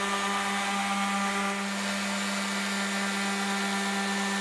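Corded random orbital sander running steadily, a constant hum over a hiss, as it sands back a dried coat of marine varnish on a hardwood tabletop.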